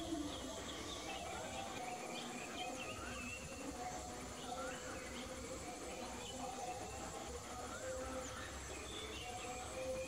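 Natural outdoor ambience: insects chirping steadily, with many short bird chirps scattered throughout.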